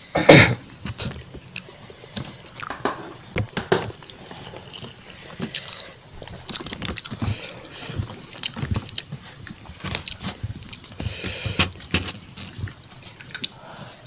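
Close-up eating sounds: wet chewing, smacking and slurping of a spicy chicken curry with mushrooms, heard as many short wet clicks, with one loud burst just after the start. A steady high-pitched whine sits in the background.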